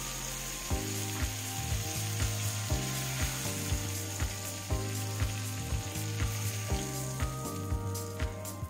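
Rockfish fillets sizzling in hot fat in a frying pan, a steady frying hiss, over background music with a steady beat of about two thumps a second.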